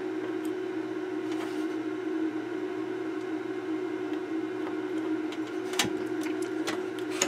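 A steady low hum throughout, with a few faint clicks and taps from pliers and fingers handling a stereo equaliser's circuit board, the clearest about six seconds in.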